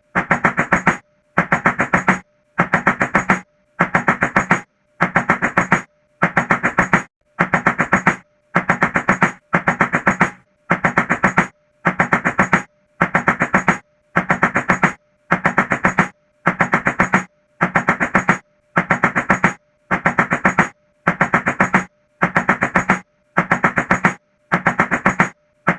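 Rapid knocking on a door in bursts of about half a dozen quick knocks, each burst lasting about a second and repeating identically about every second and a half, like a looped clip.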